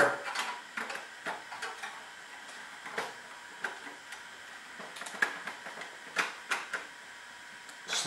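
Screwdriver working a circuit breaker's terminal screw down onto a copper wire, heard as scattered small clicks and scrapes of metal and wire at uneven intervals.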